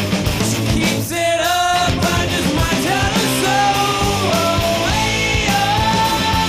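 Rock music with a held sung or guitar melody over guitars and drums.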